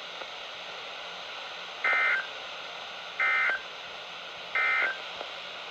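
Three short bursts of Emergency Alert System (SAME) digital end-of-message code, each about a third of a second long and about a second and a half apart, over a faint steady hiss. The bursts mark the end of the tornado warning broadcast.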